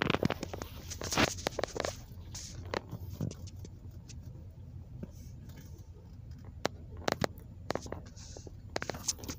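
Low, steady road rumble inside a car's cabin, with irregular sharp clicks and rustles over it, many in the first two seconds and a few more later on.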